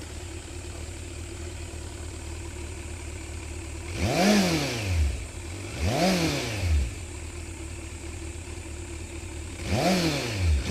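Kawasaki Z900's inline-four engine idling, then blipped twice, about four and six seconds in, the revs rising and dropping back quickly each time. After a few more seconds of idle it is blipped twice more near the end.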